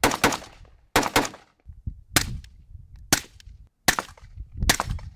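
Semi-automatic rifle fire from short-stroke piston AR-15 rifles: about eight sharp shots in an uneven rhythm, some in quick pairs, each with a short ringing tail.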